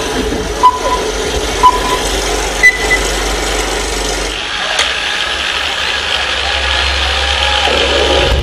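Film-leader countdown beeps played over a sound system: short beeps about once a second, then a higher-pitched final beep. About halfway through, a deep rumble with a hiss over it begins, the opening sound effect of the intro video.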